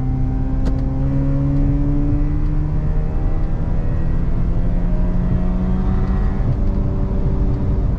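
Mazda RX-8's twin-rotor Renesis rotary engine running under light throttle, heard from inside the cabin. Its hum rises slowly in pitch as the car gathers speed, over steady tyre and road noise.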